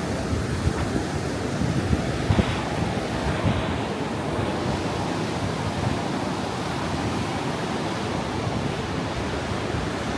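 Steady rush of the Niagara River rapids, with wind buffeting the microphone in low, uneven rumbles.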